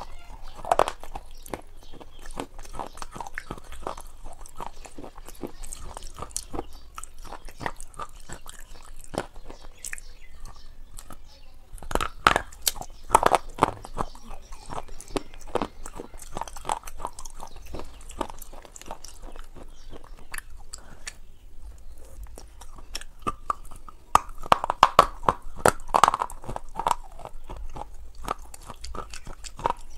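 Close-miked crunching and chewing of a crumbly white food, many small crisp crunches throughout. Louder bites come about 12 seconds in and again about 24 to 26 seconds in.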